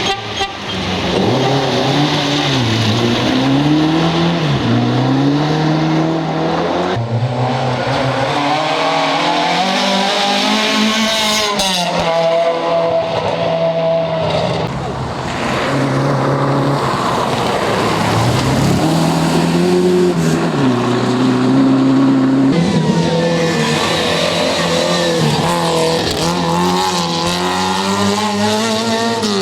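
Rally car engines running hard, their pitch climbing and dropping again and again through gear changes as the cars accelerate.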